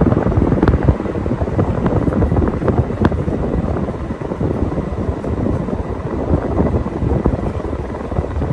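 A 50-inch Casablanca Panama 5 ceiling fan running, a steady whoosh of blades and moving air with an uneven low rumble of air buffeting the microphone.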